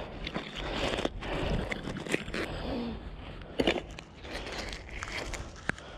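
Handling noise: scattered clicks, knocks and scrapes from a mud-caked magnet-fishing magnet and its scrap catch being handled in rubber gloves.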